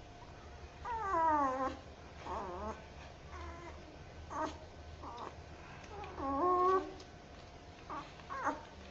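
Puppy crying, slowed down and lowered in pitch: a string of drawn-out whines, many falling in pitch, the longest about a second in and about six seconds in.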